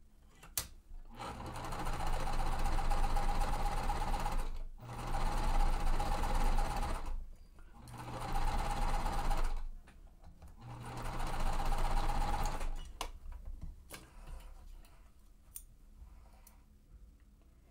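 Sewing machine stitching a quilt seam in four runs of a few seconds each, speeding up at the start of each and slowing to a stop, with short pauses between. A few faint clicks follow the last run.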